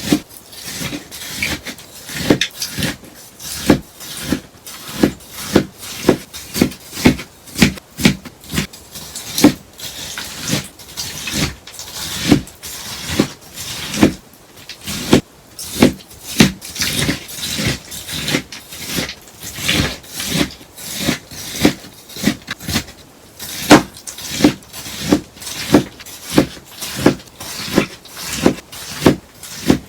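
A sponge being cut again and again, each cut a crisp, crunchy snip, at about one to two cuts a second without a break.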